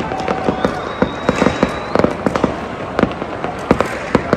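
Many fireworks and firecrackers going off at once: dense crackling with many irregular sharp bangs, and a thin high whistle rising slightly about a second in.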